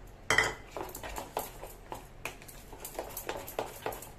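Spoon beating thick besan (gram-flour) batter in a plastic bowl: a quick, irregular run of knocks and wet slaps, about four a second, the first the loudest.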